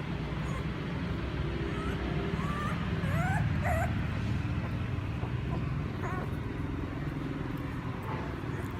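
Puppy crying: short, high, wavering whimpers and squeals, several in a row a couple of seconds in and a few more later, over a steady low rumble.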